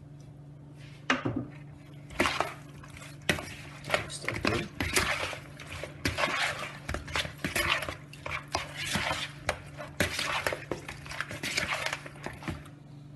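Metal spoon scraping and clinking irregularly against a bowl while stirring and tossing seasoned chicken pieces to mix in browning.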